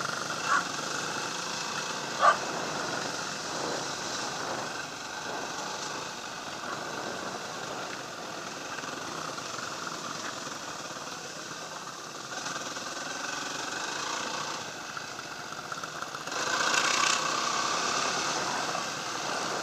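Dirt bike engine running while riding along a bumpy dirt track, with a sharp knock about two seconds in; it gets louder for a few seconds near the end.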